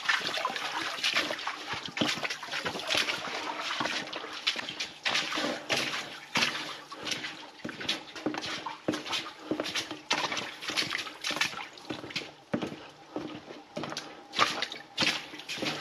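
Footsteps wading through ankle-deep water in a low concrete tunnel, a splash with each step, roughly one to two steps a second.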